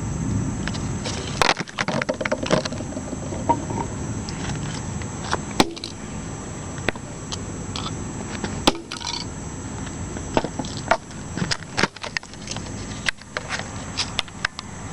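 Irregular sharp knocks and clatter of a mobile phone being smashed, with some blows much louder than the rest.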